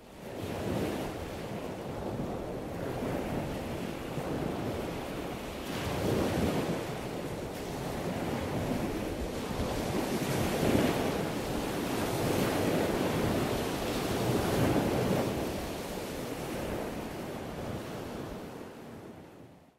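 Steady rushing noise, like surf or wind, that swells and eases every few seconds. It fades in at the start and fades out at the end.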